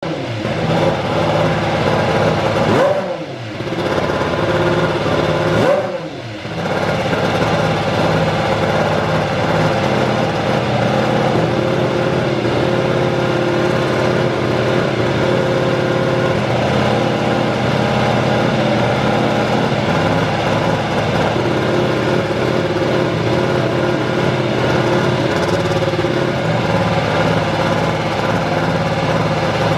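Honda RA618H 1.6-litre turbocharged V6 Formula 1 engine in a Toro Rosso STR13 running on warm-up. Two quick throttle blips, about three and six seconds in, send the revs up and let them fall back, then it settles to steady running.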